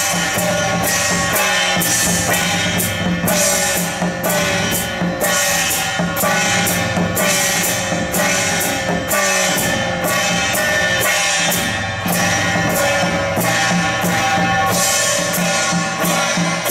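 Gong-and-drum procession troupe playing: many small hand-held bronze gongs struck with beaters in a brisk steady beat over a drum, the gong tones sliding down in pitch after each stroke.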